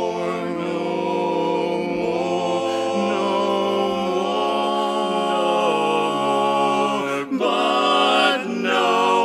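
Male barbershop quartet singing a cappella in close four-part harmony, holding a long sustained chord; about seven seconds in the chord breaks briefly and a new chord is held.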